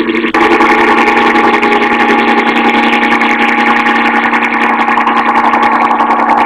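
A steady, buzzing drone holding a fixed pitch. It changes abruptly about a third of a second in.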